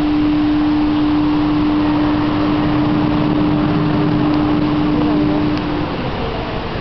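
A steady hum held at one unchanging pitch, stopping about six seconds in, over a busy background of noise with a few faint voices near the end.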